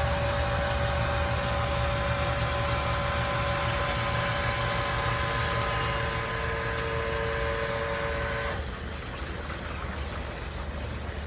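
A sewage pump's electric motor runs with a steady low hum and a thin whine above it. The whine cuts off sharply about eight and a half seconds in, as the pump shuts off, leaving a low rumble.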